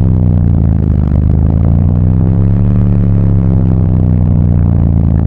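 A car audio system's four Crescendo Audio Contralto 15-inch subwoofers playing a loud, sustained deep bass note, heard from inside the car's cabin, its pitch bending slightly in the middle.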